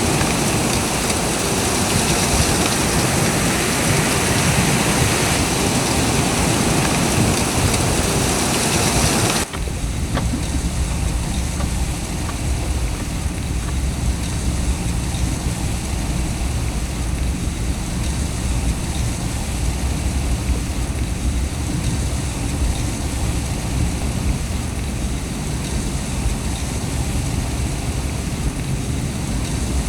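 A loud, even hiss for about nine seconds, cutting off suddenly into the steady low rumble of a four-wheel-drive vehicle driving on snowy roads, heard from inside the cab.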